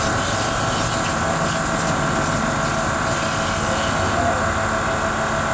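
KPT Shakti SPW 1400 electric pressure washer (1400 W, 120 bar) running steadily, its pump motor humming under the hiss of the water jet spraying onto the engine.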